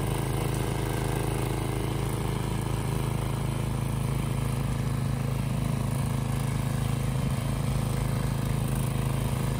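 Gas-engined two-stage snow blower running steadily at a constant pitch while its auger takes in snow and throws it out of the chute.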